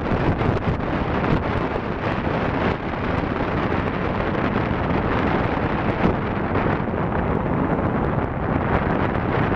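Rushing airflow from a hang glider in flight buffeting a wing-mounted camera's microphone: a steady, loud wind noise whose level flickers unevenly throughout.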